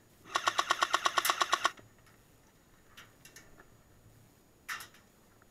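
Airsoft M60 firing a short full-auto burst: about fourteen rapid shots at roughly ten a second, lasting under a second and a half. A few fainter single pops follow, one louder near the end.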